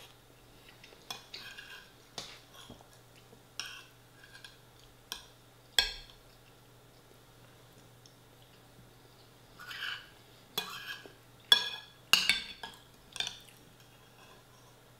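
Metal cutlery clinking and scraping against a ceramic bowl as food is scooped up, in scattered short strokes with a quick run of them about two-thirds of the way through.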